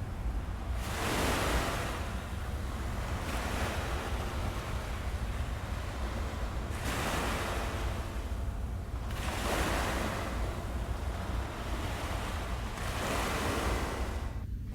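Ocean waves washing on a shore: a low steady rumble with about five swells of surf that build and fall away.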